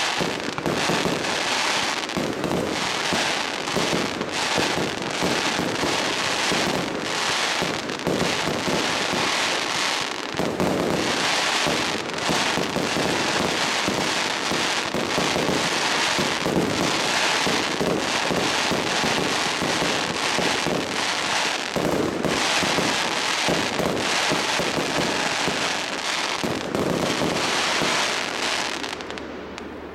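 Fireworks in a rapid, continuous barrage, with shells bursting and crackling one over another and no break. The barrage dies down about a second before the end.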